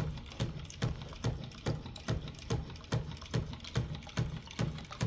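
Quarter-scale Rider-Ericsson hot air pumping engine running up to speed, knocking in a steady rhythm of about two and a half strokes a second. Water splashes from its brass discharge pipe into the barrel with each stroke.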